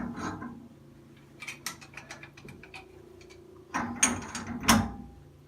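Metal hand tools clicking and clanking on a Price Pfister shower valve stem as it is tightened: scattered short clicks, then a few louder clanks about four seconds in.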